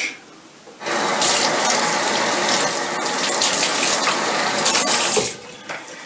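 Bathroom sink faucet running into the basin: a steady rush of water that starts about a second in and stops shortly before the end.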